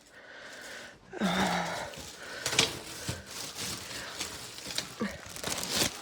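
A person breathing hard, with a brief grunt-like sound about a second in, scattered rustling and light clicks and knocks from handling a PC case.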